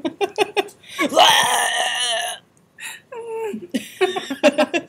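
Two young women laughing in short bursts, with one loud, long burst starting about a second in.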